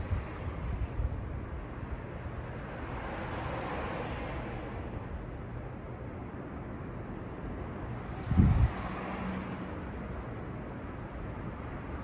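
Outdoor ambience: wind buffeting the microphone over a steady background rumble, with a passing vehicle swelling and fading a few seconds in. A sharper gust hits the microphone about eight seconds in.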